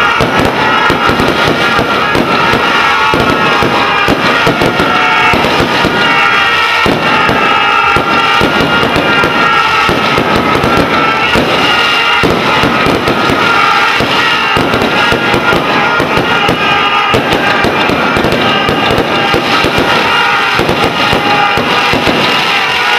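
Fireworks going off in a dense, continuous crackle over loud music.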